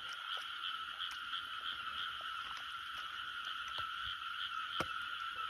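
Frogs calling in a dense night chorus from a flooded rice paddy: a steady, continuous trilling that pulses about three times a second. A few faint clicks sound over it, with one sharper click shortly before the end.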